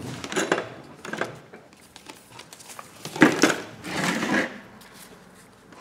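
Handling noises on a workbench: a thin white plastic box and small items being picked up, set down and shifted, in several short clattering, rustling bursts. The loudest come about three to four and a half seconds in.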